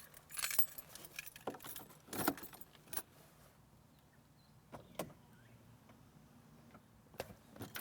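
Car keys on a key ring pulled from a trouser pocket, jingling and clinking in short bursts, with a sharp click about five seconds in and more jingling near the end.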